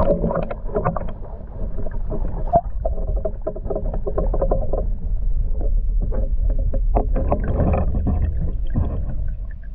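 Water sloshing and gurgling around an action camera held just below the lake surface, heard muffled through the submerged camera over a steady low rumble, with scattered knocks. It starts abruptly as the camera goes under.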